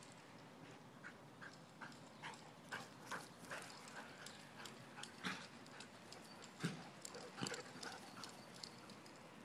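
Faint footsteps on grass: a steady run of short steps about two or three a second that turns irregular, with a few louder knocks past the middle.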